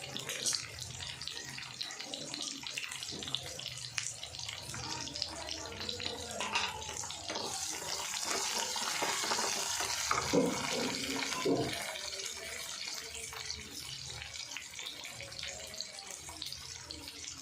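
Water running from a tap into a sink, with scattered knocks of things handled under it; the flow is heavier for a few seconds in the middle.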